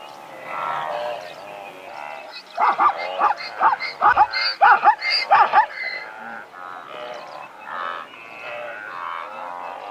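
Zebra calling: softer pitched calls, then from about two and a half seconds in a loud, rapid run of barking yelps, about three a second, for some three seconds, before softer calls return.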